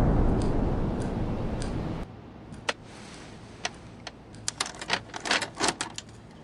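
A loud rush of noise fades out about two seconds in. After it comes a run of irregular, sharp clicks and taps, several close together near the end.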